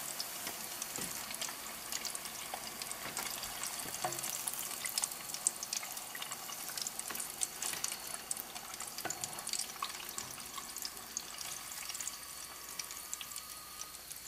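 Hot oil sizzling around battered chicken tenders deep-frying in a pot: a steady hiss with many small crackles and pops.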